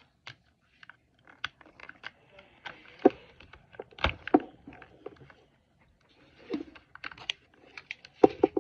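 A printed wrapper being peeled and torn off a Mini Brands toy capsule by hand: irregular crinkling and crackling with sharp clicks, loudest about three and four seconds in and again near the end.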